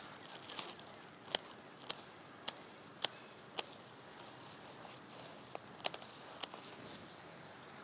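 Garden scissors snipping through amaranth stems: a run of five sharp snips about half a second apart, then a few more, scattered, with light rustling of leaves near the start.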